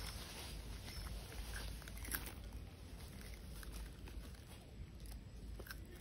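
Red-footed tortoise biting and chewing watermelon rind: a few faint scattered crunches and clicks, the clearest about two seconds in and another near the end.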